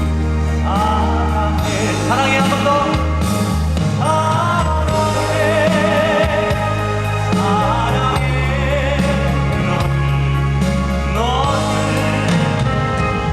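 Live band music: a melody line with vibrato and upward swoops over sustained bass notes and chords.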